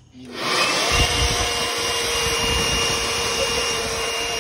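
Handheld leaf blower starting up and running at a steady whine, its air blast aimed into a man's open mouth, which adds a low, uneven fluttering rumble from about a second in.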